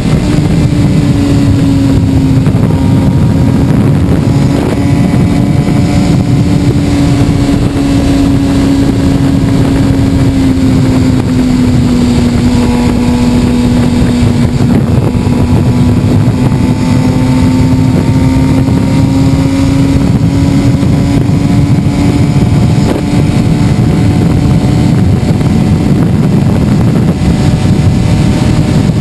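Suzuki sport motorcycle engine running steadily at highway speed under heavy wind noise on the microphone. Its pitch sags slightly around the middle and climbs back toward the end.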